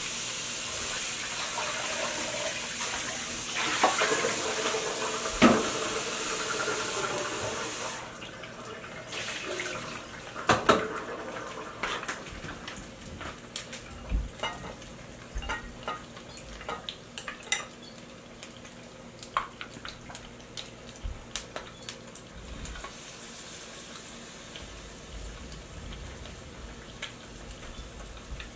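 Kitchen tap running into a sink while dishes clink, the water shut off abruptly about eight seconds in. Then scattered light clicks and taps of chopsticks and utensils against a bowl, and near the end a faint hiss of oil heating in a frying pan.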